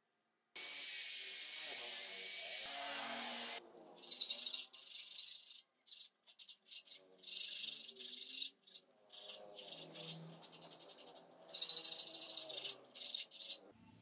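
Hand file rasping across the cut end of a steel rebar clamped in a vise. A longer unbroken stretch of filing in the first few seconds gives way to a run of quick separate strokes with short gaps between them.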